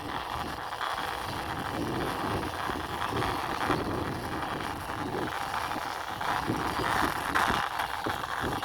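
Toy military tank pushed by hand along the ground, its wheels rolling and scraping with a steady rough noise.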